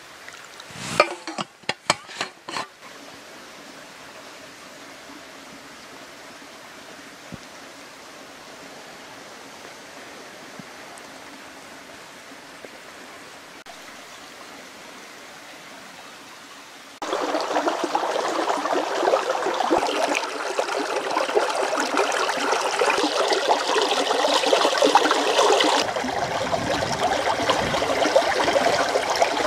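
A few sharp knocks of a metal bottle against a metal cooking pot as snow is tipped in, then a quiet steady hiss. About halfway through, a shallow forest stream starts up loud, running and splashing over pebbles, with a fuller low rush near the end as a hand stirs in the water.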